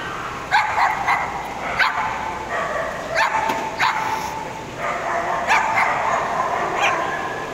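Dogs barking at a dog show: about eight short, sharp barks at irregular intervals over a steady background murmur.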